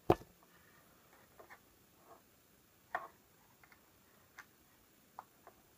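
Scattered light clicks and taps of a knife tip working baking powder out of its tub: one sharp click at the start, then about nine faint ticks spread irregularly.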